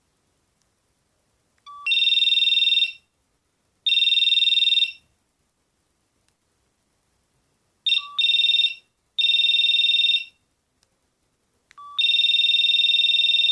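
Mitsubishi MT401 mobile phone playing its built-in ringtones through its speaker: high, trilling ring bursts about a second long, with short gaps between them. Three times, about two, eight and twelve seconds in, a short lower beep comes just before a new ringtone starts.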